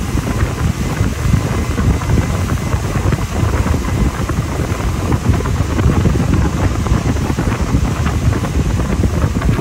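Wind buffeting the microphone on a motorboat underway, over a steady low rumble from the boat moving through the water.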